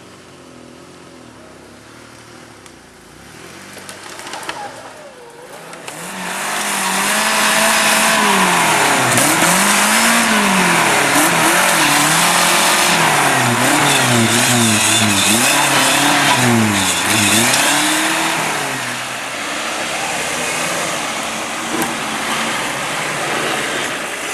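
Off-road trial car's engine revving hard, its pitch rising and falling again and again. It grows loud about six seconds in and eases off in the last few seconds.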